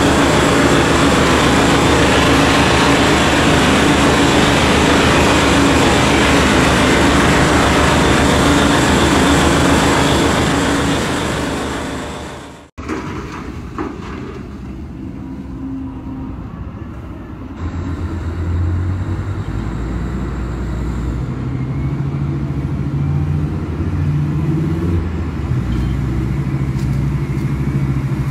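Mining shovels at work: a CAT 7495 electric rope shovel loading a haul truck gives a loud, steady rumble that fades out about twelve seconds in. A P&H 4100XPC electric rope shovel follows, digging with a quieter rumble and a low hum that steps up in pitch in the second half.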